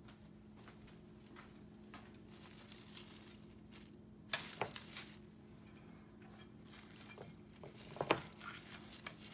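Plastic cling wrap crinkling as hands press it around a pot, with a louder rustle about four seconds in; near the end a metal pot lid is set on top with a couple of light knocks.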